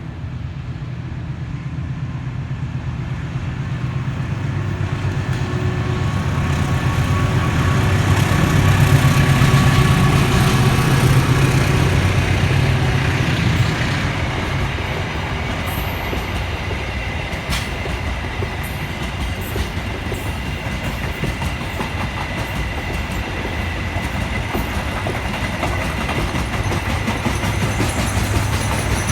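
Train passing close by: the rumble and clatter of its wheels on the rails grows louder over the first nine seconds or so, then goes on steadily. A thin steady whine sits over the rumble in the second half.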